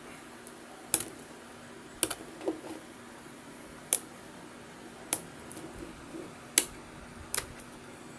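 Fingernails picking and tapping at a cube's cardboard-and-plastic packaging, trying to prise it open: about seven sharp clicks at irregular intervals, roughly one a second.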